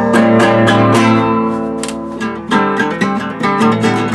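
Acoustic guitar strummed in a steady rhythm, easing off and fading about two seconds in before the strumming picks up again.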